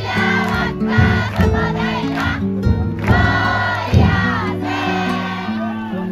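Many voices singing a festival song together in unison, with a few strikes of the futon daiko float's drum. The strikes are loudest about a second in and at about four seconds.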